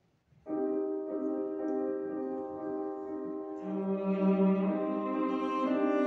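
Cello and Steinway grand piano playing classical chamber music together, starting suddenly about half a second in; a low, sustained note comes in a little past the middle.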